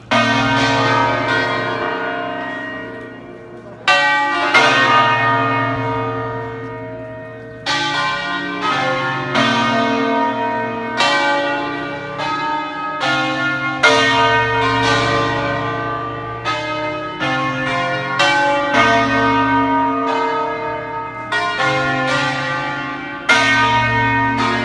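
Church bells ringing the noon peal: several bells of different pitches struck one after another, each stroke ringing on and slowly fading beneath the next, with a new stroke every one to four seconds.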